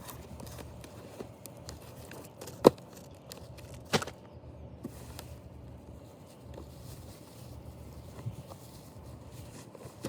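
Hands handling a plastic toy backhoe loader and its packaging: soft rustling with two sharp plastic clicks, a little over a second apart.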